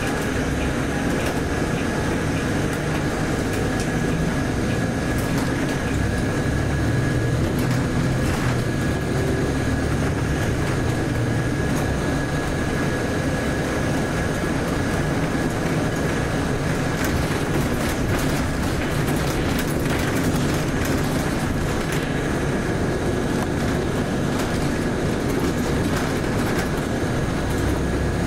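Volvo B8RLE bus's diesel engine and road noise heard from inside the cabin, running steadily, with a thin high whine throughout and a cluster of rattles past the middle.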